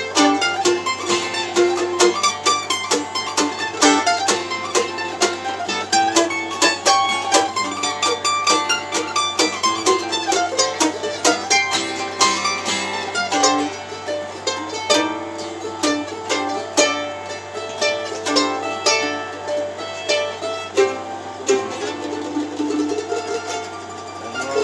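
Acoustic jam with no singing: mandolin picking quick runs of notes over acoustic guitar. The playing gets a little quieter past the middle.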